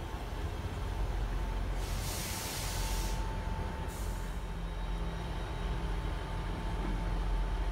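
Class 158 diesel multiple unit standing at a platform, its engines a low steady rumble, with two loud hisses of air from its air brakes: a longer one about two seconds in and a shorter one about four seconds in.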